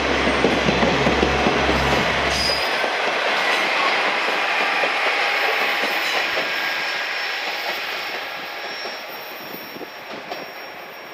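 Two-car KiHa 47 diesel railcar running past close by and pulling away, with the noise of its wheels on the rails. Its low engine rumble drops away about three seconds in, and the sound then fades steadily as the train recedes.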